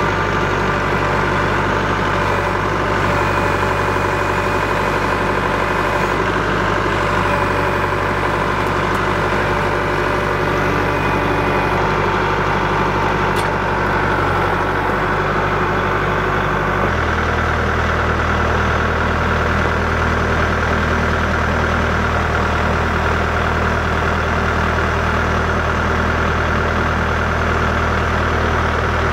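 Kubota cab tractor's diesel engine running steadily while it works its loader pallet forks to carry a log, with its engine note changing once, abruptly, a little past halfway.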